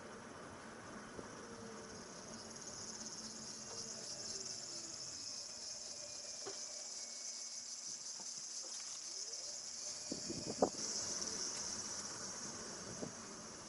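Nissan Leaf (ZE1) slowing to a stop and pulling away again, its electric drive whine falling and then rising, with a steady high-pitched hiss over it. A short cluster of sharp knocks comes about ten seconds in, as it moves off, and a single smaller knock follows near the end. These knocks are the abnormal noise the owner has noticed when stopping and starting.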